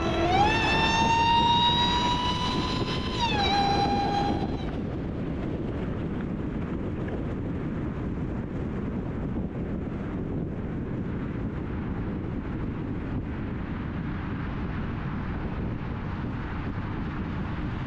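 Supercharger whine from a Dodge Hellcat's supercharged Hemi V8 under acceleration: a high whine that climbs, holds, drops a step about three seconds in and cuts off at about four and a half seconds. After that, steady wind and road noise from the car at freeway speed.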